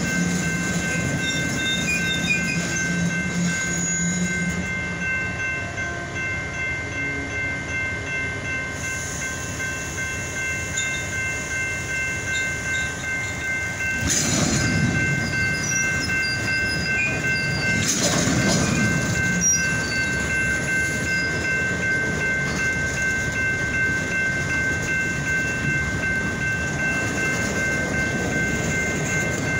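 Freight train's boxcars rolling past, steel wheels running on the rails with a steady rumble. A steady high-pitched ringing tone holds throughout, and there are two louder swells of rolling noise about halfway through.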